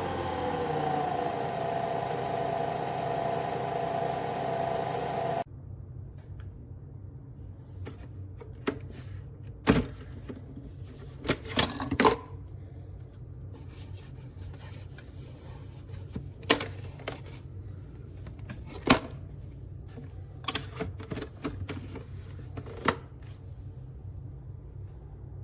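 Nespresso Vertuo Pop+ coffee machine whirring as it spins the capsule to brew, its pitch sliding down and then holding steady, until it cuts off suddenly about five seconds in. After that a low hum remains, with scattered clicks and knocks of handling.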